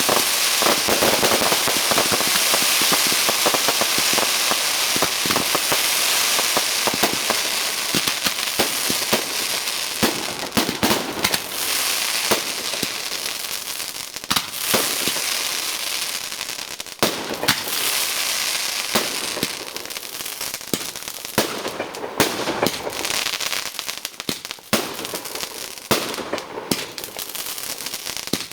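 Fireworks display: a dense, continuous crackling for the first third or so, then many sharp bangs and crackles going off one after another.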